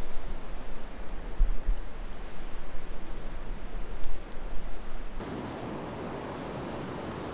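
Uneven rubbing and handling noises over a low rumble, with a few sharp clicks, then about five seconds in a sudden change to the steady rush of flowing river water.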